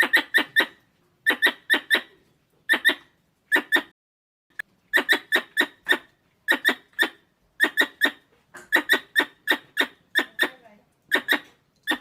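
A small squirrel calling in sharp, squeaky chirps, given in quick runs of three or four with short pauses between the runs, over and over.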